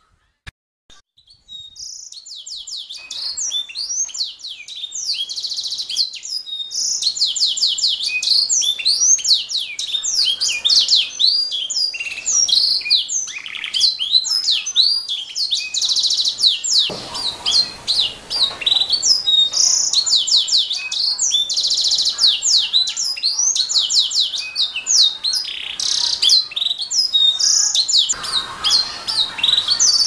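Domestic canary singing a long, continuous song of fast, high-pitched trills and rolled chirps. It starts about two seconds in after a brief near-silence.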